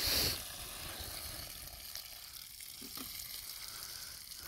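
Water streaming out of a plastic bucket with holes in it and splashing onto grass as the bucket is emptied: a steady hiss, loudest at the very start.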